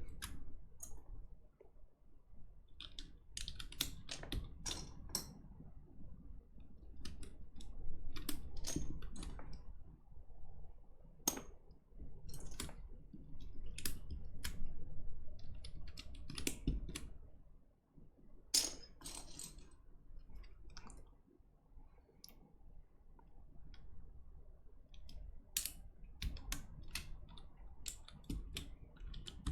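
Scattered, unevenly spaced plastic clicks and clacks from mechanical keyboard parts being handled and pressed, some sharper than others.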